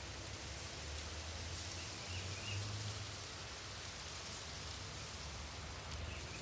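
Steady outdoor background noise: an even hiss over a low, wavering rumble, with a few faint high chirps about two seconds in.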